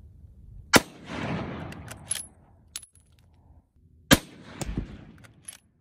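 Two rifle shots from a Savage 110 bolt-action rifle, about three and a half seconds apart, each followed by about a second of rolling echo. A few light metallic clicks come between them, as the bolt is worked.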